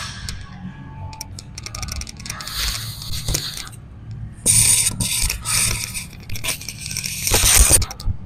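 Scraping, rustling noise from a body-worn microphone rubbing on clothing during a heavy set of cable tricep pushdowns. It comes in irregular bursts, the loudest near the end, after a few light clicks about a second in.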